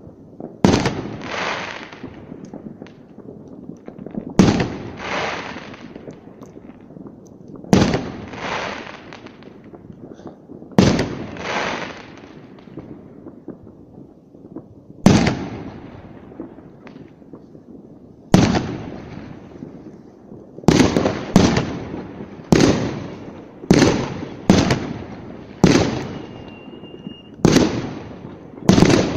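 Fireworks exploding: sharp bangs a few seconds apart, each trailing off in crackle, coming faster at about one a second in the last third. A short steady whistle sounds near the end.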